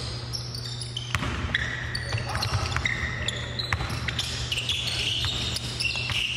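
Basketball bouncing on a hardwood gym floor, with short high squeaks of sneakers on the court as players cut and stop. It echoes in a large gym, over a steady low hum.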